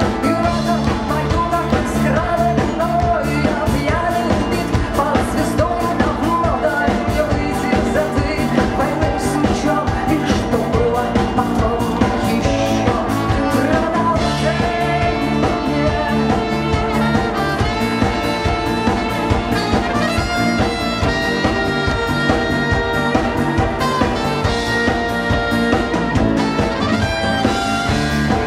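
Live rock band playing a song at steady volume: drum kit, bass guitar, electric guitar and acoustic guitar, with a sustained lead melody line over them.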